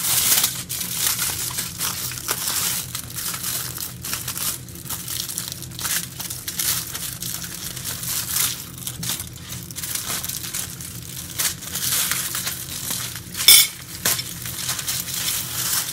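Aluminium foil crinkling and crackling as it is pulled open by hand, with one louder crack near the end.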